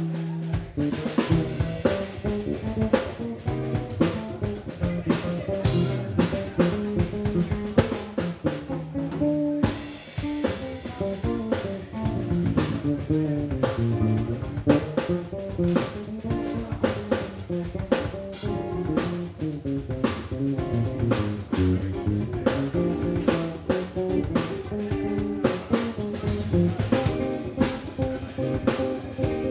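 Live instrumental band playing: a drum kit keeps a busy beat of snare, bass drum and cymbals under electric guitar lines.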